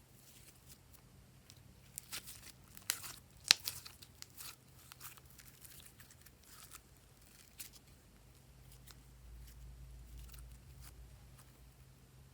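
Glossy slime being pressed and stretched by hand, giving sticky crackles and pops. They come thickest a couple of seconds in, with one sharp snap, then thin out to scattered clicks.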